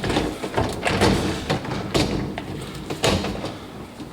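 Irregular knocks, clicks and rattles of parts being handled inside an open dishwasher, with a louder knock about three seconds in.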